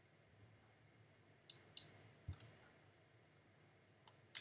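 Computer mouse buttons clicking, six sharp clicks in three quick pairs spread over a few seconds, over a faint low hum.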